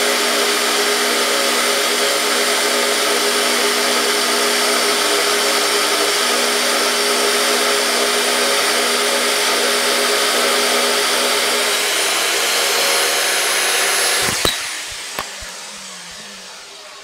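Aldi metal-cutting bandsaw set up vertically, running steadily while its blade slowly cuts through a thick aluminium plate. About fourteen seconds in it is switched off with a click, and the motor and blade wind down to a stop.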